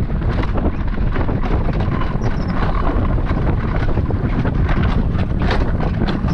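Heavy wind buffeting the microphone over the rumble of a mountain coaster sled's wheels running fast along its metal rails, with frequent short clicks and rattles.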